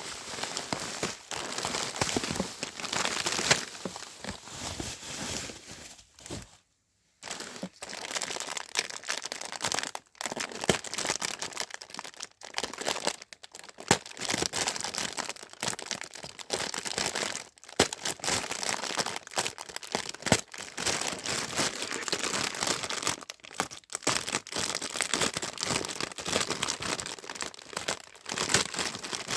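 Plastic parcel packaging crinkling as it is handled and opened, a long run of crackly rustling with a brief break about seven seconds in.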